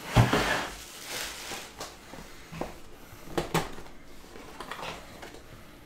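Hands handling and opening a cardboard Topps Clearly Authentic card box: a thump near the start, about a second of cardboard rustling, then a few light knocks and clicks, the sharpest about three and a half seconds in.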